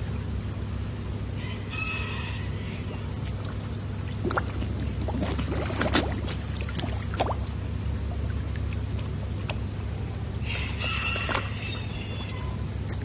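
Two pitched animal calls, each about a second long, one near the start and one near the end, over a steady low hum, with a few knocks in between.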